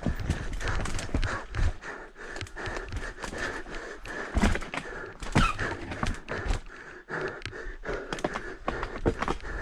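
Full-suspension mountain bike (Knolly Fugitive LT) riding fast down rough dirt singletrack: tyres rolling over dirt and rocks with frequent sharp knocks and rattles from the bike, and the rider breathing hard.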